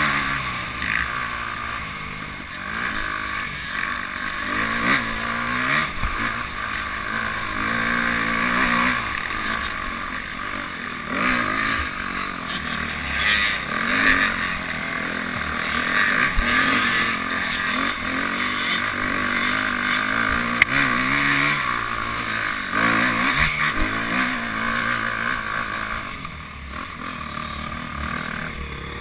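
Dirt bike engine revving up and down as the rider works the throttle along a rough trail, heard close from a camera mounted on the bike, and easing off near the end.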